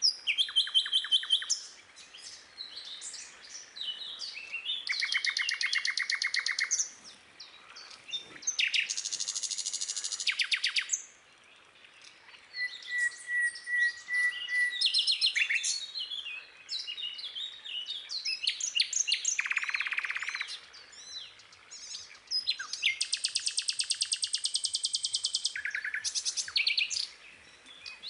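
Birds singing and chirping, with fast trills repeating in phrases of a second or two, separated by short pauses and scattered chirps.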